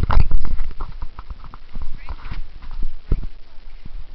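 Handheld camera jostled while walking: irregular knocks and thumps of handling and footsteps on pavement, heaviest with a low rumble in the first half second.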